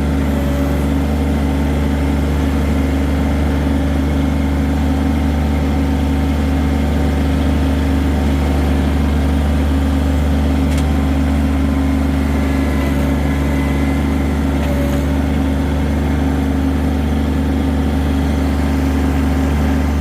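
Compact diesel tractor engine, a John Deere 1023E's three-cylinder diesel, running steadily at a constant speed.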